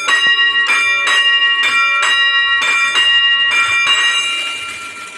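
A bell ringing over and over, about two strikes a second, each strike leaving a bright sustained ring; the strikes stop about four seconds in and the ring fades out.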